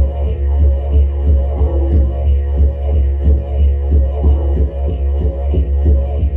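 A deep, steady instrumental drone with rich overtones, pulsed rhythmically about three times a second, played as a sound-vibration demonstration.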